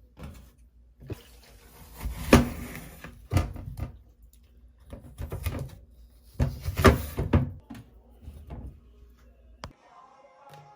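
Household handling sounds: a series of knocks and clunks, with two louder stretches of clattering and rustling, like cupboard doors and objects being moved.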